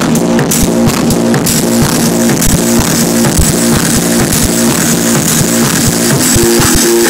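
Loud techno from a live electronic set, a repeating bass-synth pattern over a steady beat. The sharp hi-hat ticks drop out about a second and a half in, and a bright hissing wash takes over the top end.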